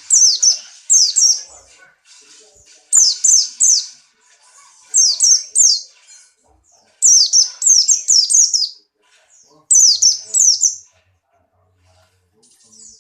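Buxtoni white-eye (pleci) singing in short, loud bursts of two to five quick, high chirps, each note sliding downward. The bursts are separated by pauses of a second or two. This is the full song of a bird in breeding condition.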